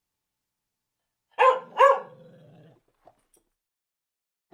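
A dog barking twice, two short high-pitched barks about half a second apart.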